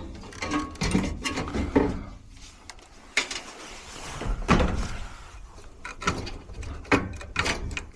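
Irregular knocks, clicks and scraping of hand tools and metal furnace parts being handled, with a few louder knocks about halfway through and near the end.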